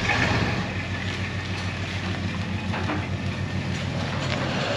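Tow truck engine running at a steady, evenly pulsing beat while it tows the old Model AA chassis, with a single clank near the middle.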